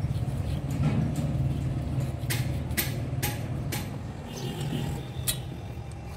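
An engine idling with a steady low throb, and a handful of sharp metallic clinks as a wrench and bar work on the gearbox's cast casing and bolts, between about two and five and a half seconds in.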